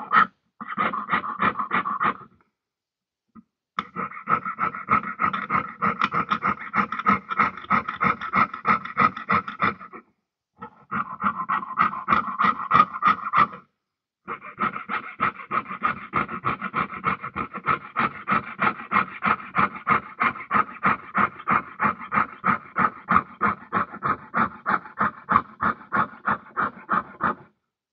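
Jeweller's piercing saw cutting a silver sheet on the bench peg, a quick rhythmic rasp of about three to four strokes a second. The strokes stop briefly three times, about 2, 10 and 14 seconds in.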